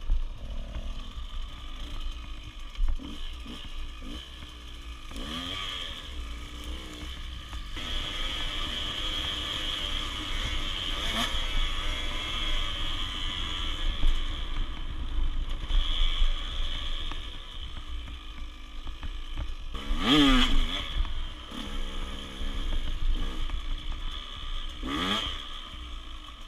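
Dirt bike engine running as it is ridden, its revs rising and falling several times, with the sharpest climbs about a fifth of the way in, about three-quarters of the way in and near the end.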